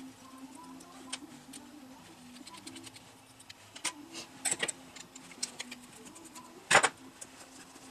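Light clicks and taps of small carburetor parts and tools being handled on a workbench during a chainsaw carburetor rebuild, with one louder knock near the end, over a faint steady hum.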